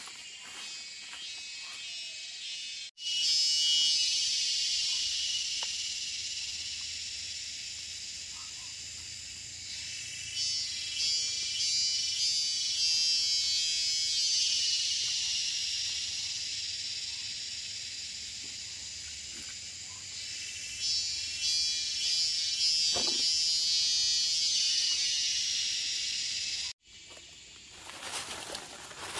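A chorus of insects buzzing shrilly, swelling and fading in waves. It begins abruptly about three seconds in and cuts off abruptly near the end.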